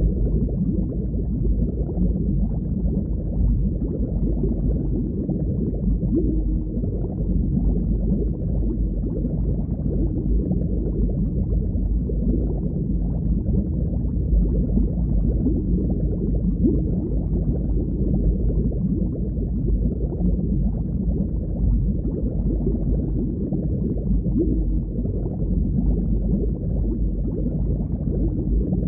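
Underwater ambience: a steady, muffled low rumble of moving water, with no events standing out.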